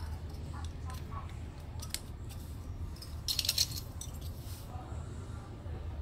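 Small metal clicks, then a short metallic rattle about three seconds in, as battery cable connectors and the steel battery shelves inside a 3 kVA UPS cabinet are handled, over a steady low hum.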